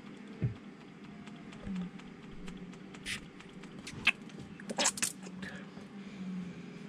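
Small clicks, taps and scrapes of hands working the return fuel line fittings onto the injectors of a Volvo Penta D2-55 diesel, a few sharper snaps about three to five seconds in, over a steady low hum.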